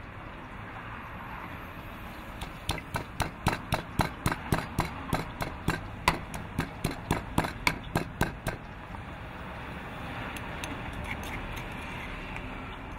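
Stone pestle pounding chillies and garlic in a stone mortar, about four sharp strikes a second that stop after about six seconds.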